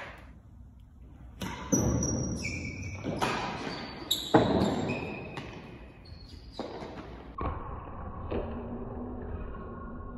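Real tennis rally: the hard ball struck by rackets and bouncing off the court's floor and walls, a string of sharp, irregularly spaced knocks echoing in the hall.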